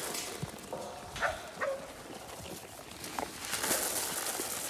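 Goat feed pellets rattling and hissing as they are poured and shaken in a feed pan, in two spells near the start and end. A couple of brief animal calls come about a second in.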